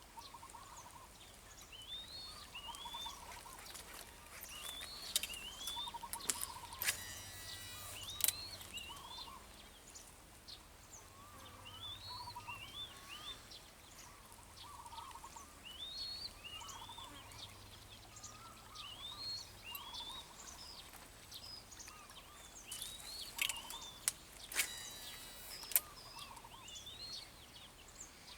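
Birds calling over and over outdoors, mixing short warbling notes with quick chirps that sweep up and then fall away. Sharp clicks and a short rattle come in two clusters, about a quarter of the way in and again near the end.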